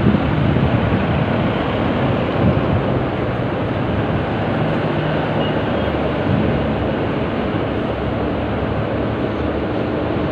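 Steady street traffic noise, with cars and a motorcycle driving past close by.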